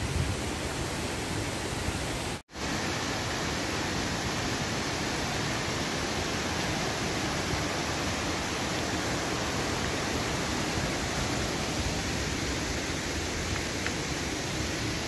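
Steady rush of a waterfall and its rocky stream, an even hiss with no distinct events, cutting out for a split second about two and a half seconds in.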